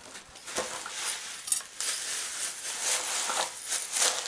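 Tissue-paper packing rustling and crinkling as hands dig through it, with a few light clicks.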